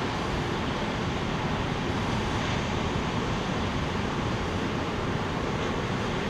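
Ocean surf washing against sea rocks, with seawater streaming off the rock face: a steady rush of water with wind on the microphone.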